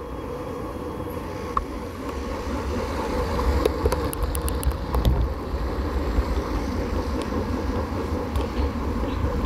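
Bicycle ride on asphalt heard from a camera on the rider: steady wind rumble on the microphone and tyre and road noise, growing a little louder, with a short run of clicks and rattles about four to five seconds in.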